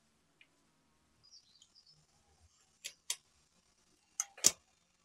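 Sharp clicks and clacks of metal parts being handled on a mountain bike's front brake: a pair near three seconds in and another pair around four seconds in, the last the loudest.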